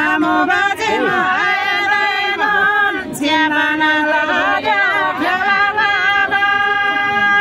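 Women singing a Tamang fapare selo juhari melody, several voices together in two long phrases of held, wavering notes, with a short break about three seconds in.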